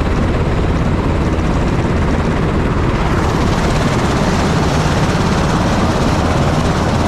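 UH-60 Black Hawk helicopter running loud and close, its twin turboshaft engines and main rotor giving a dense steady noise with a rapid rotor beat underneath. The sound grows brighter and sharper about three seconds in.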